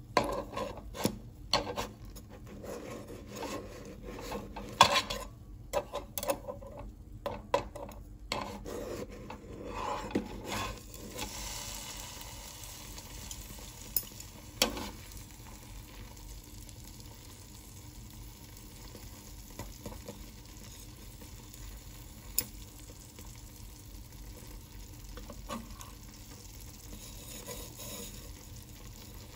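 Kitchen tongs knocking and scraping against a small nonstick pan while a cheese pizza is lifted and flipped: a busy run of clicks and knocks for the first ten seconds or so. Then a soft, steady sizzle from the hot pizza in the pan, broken by a few single taps of the tongs.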